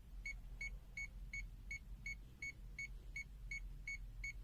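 Aneng AN-V03B multimeter's non-contact voltage (NCV) alarm beeping in short, even, high-pitched pips, about three a second: the sign that it is sensing live AC voltage close by.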